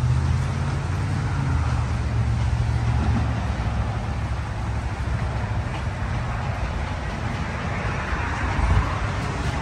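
Strong gusty wind buffeting the microphone. A heavy low rumble in the first three seconds eases into a steady rushing hiss.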